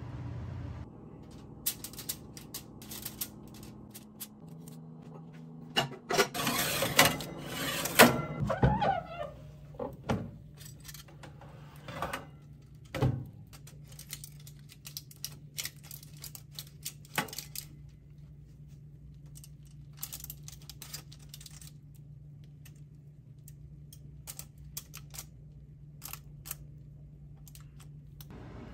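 Metal kitchen tongs clicking and clattering against a foil-lined oven tray as slices of toast are set down one by one, with the busiest, loudest clatter about six to eight seconds in. A steady low hum runs underneath.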